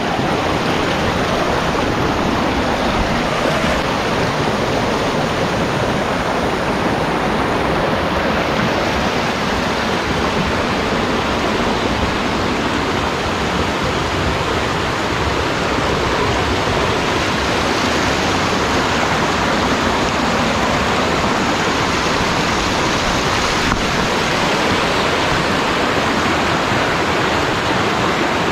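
Clear, shallow rocky river rushing over boulders and small rapids: a steady, unbroken water rush.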